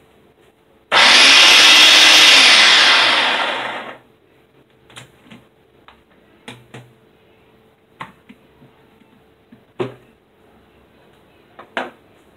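Ninja pod-style blender motor running for about three seconds, blending carrot and pumpkin juice. It starts suddenly, rises in pitch as it spins up, then falls and fades as it winds down. A few short, light knocks follow as the blender is handled and the motor head is lifted off the plastic jar.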